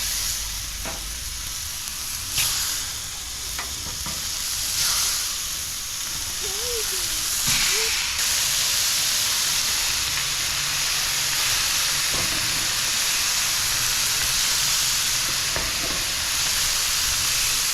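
Food sizzling on a hot Blackstone flat-top griddle, a steady frying hiss that gets louder about halfway through, with a few light knocks in the first few seconds.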